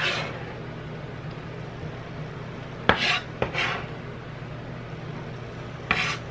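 Kitchen knife blade scraping diced tomato across a plastic cutting board. A sharp tap and short scrapes come about three seconds in, and another scrape comes near the end, over a low steady hum.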